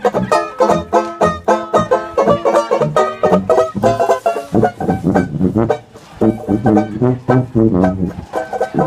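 Banjo strumming a fast, even rhythm with a tuba playing the bass line underneath, in an upbeat swing tune.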